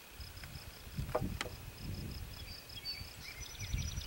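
An insect chirping in a steady, rapid, high-pitched pulse, over an uneven low rumble; a light click about a second and a half in, and a bird calling briefly near the end.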